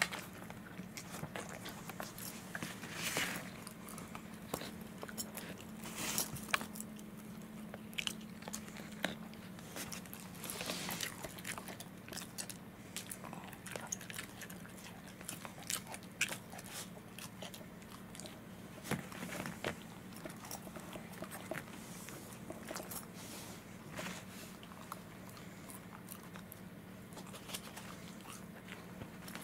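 Welsh corgi biting and chewing a hand-held strip of rawhide gum: irregular crunches and clicks of teeth working the hard rawhide.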